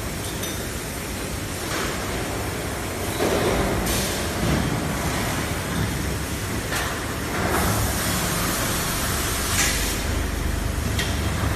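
Automatic bag conveying and sewing machine running, with a steady mechanical rumble and several short hisses of compressed air from its pneumatic actions.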